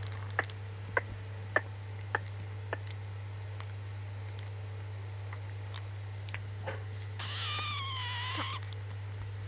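A baby gives one high-pitched, drawn-out squeal lasting about a second and a half, some seven seconds in, falling slightly in pitch. It sounds over a steady low hum, with a few faint clicks in the first three seconds.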